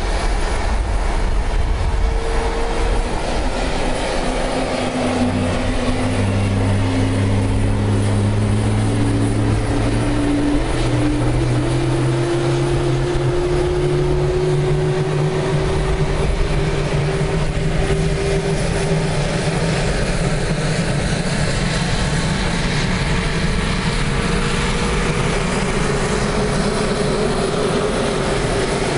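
F-22 Raptor jet turbines running on the ground: a loud, steady rush with a low rumble. About five seconds in, whining tones come in and slowly rise in pitch for about ten seconds before levelling off, as the turbines spool up.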